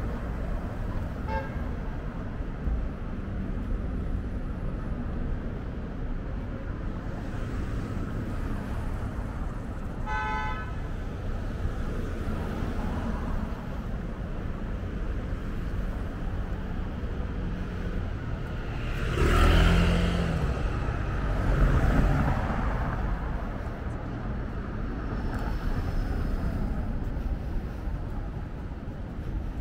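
Steady city street traffic. A car horn gives one short toot about a third of the way in, and vehicles pass close by, loudest twice in quick succession about two-thirds of the way through.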